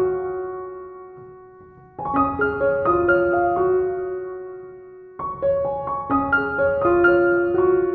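Background piano music: short phrases of notes that ring and fade, with a fresh phrase beginning about two seconds in and another about five seconds in.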